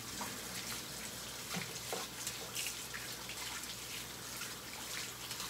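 Water running steadily from a tap, a continuous hiss with small splashes and drips through it.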